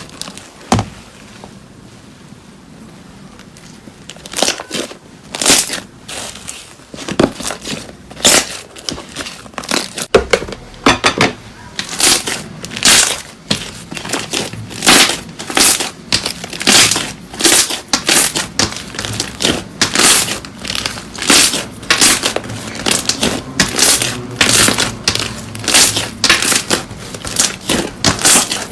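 Crunchy slime being pressed and squeezed, crackling and crunching in short bursts. Sparse at first, the crunches come about one to two a second from about a third of the way in.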